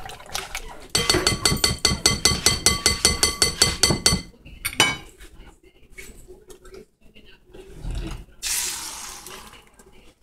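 A utensil beating an egg mixture in a bowl: quick, evenly spaced clinks against the bowl that ring, about five or six a second for three seconds, then one single clink. About a second-long hiss comes near the end.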